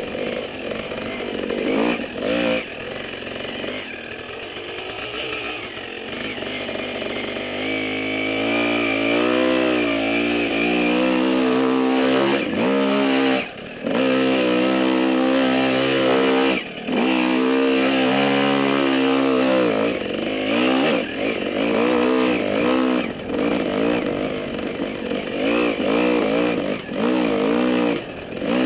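Dirt bike engine running under way on a rough trail, its revs rising and falling over and over as the throttle is worked, with a couple of brief sharp drops in sound around the middle.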